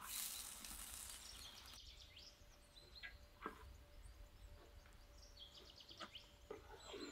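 Water streaming through a perforated metal skimmer as parboiled rice is lifted out of an aluminium pot, a hiss that stops abruptly under two seconds in. Then come a few light clicks of the skimmer against the pot, with birds chirping in the background.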